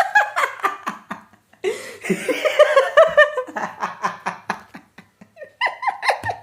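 Human laughter: rapid runs of short pitched 'ha' syllables, in three spells with brief pauses between them.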